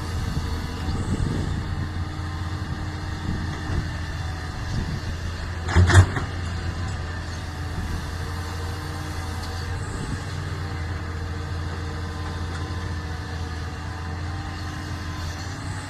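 Doosan excavator's diesel engine running steadily at work. A single loud knock about six seconds in.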